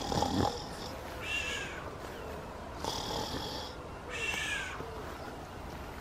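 Animal calls repeated about every one and a half seconds, alternating between two different calls.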